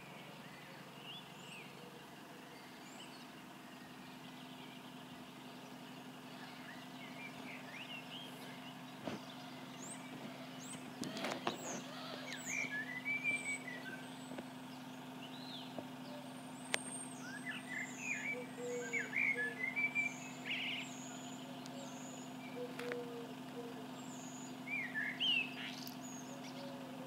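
Small birds chirping and twittering in repeated bursts, over a steady low engine hum from a distant idling bus.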